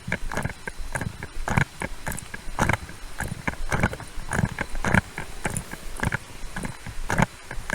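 Footsteps at a walking pace, about two a second, each with a clatter of the wearer's duty gear.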